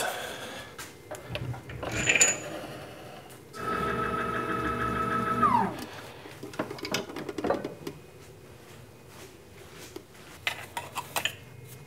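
An electric motor runs with a steady whine for about two seconds, then its pitch drops quickly as it stops. Scattered metal clinks and knocks come before and after it.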